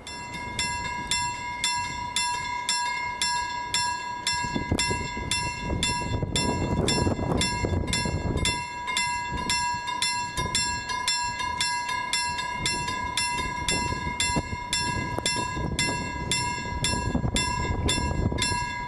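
Railway level-crossing bell ringing with repeated strikes, about two and a half a second, and ringing on briefly after the last strike. A low rumble runs under it and swells in the middle and near the end.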